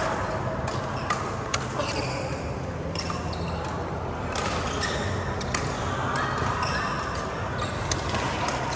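Badminton rally: rackets striking the shuttlecock, several sharp hits at irregular intervals.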